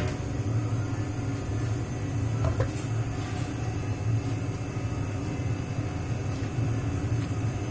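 A steady low machine hum, with a few faint light knocks about two and a half seconds in.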